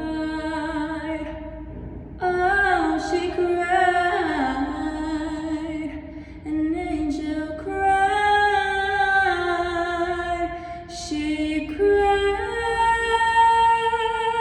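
A young woman singing solo a cappella, long held, wavering notes in several phrases, echoing in a stairwell.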